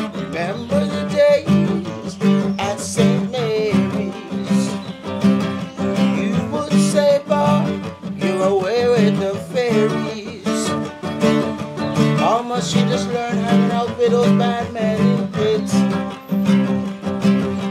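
Classical acoustic guitar strummed and picked in a steady, even rhythm, playing chords.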